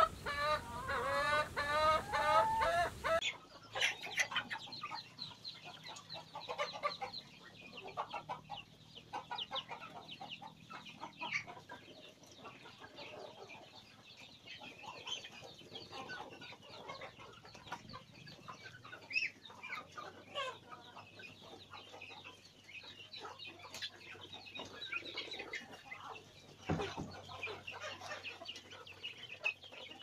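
Chickens clucking and calling: loud repeated rising calls for about the first three seconds, then a quieter, busy flock clucking and chirping while feeding. A single sharp knock near the end.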